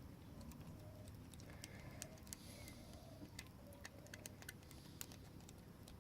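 Faint, irregular metallic ticks of a lock pick working the pins of a pin-tumbler padlock held under a tension wrench, over a low steady hum.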